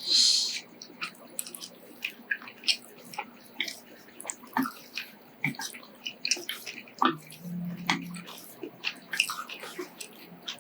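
Eating noodles up close: a loud slurp right at the start, then wet chewing with many small mouth clicks and smacks.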